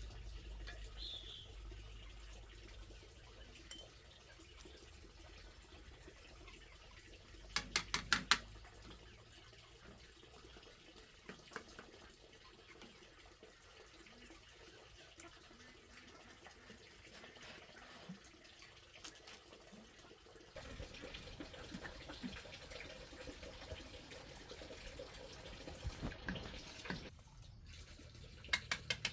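Water running and splashing, as at a tap or basin, with a quick run of sharp clicks about eight seconds in and a few more near the end.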